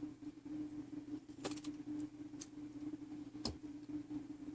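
A few sharp, scattered metallic clicks of small tools against brass clock-movement parts as a piece is loosened and removed, over a steady low hum.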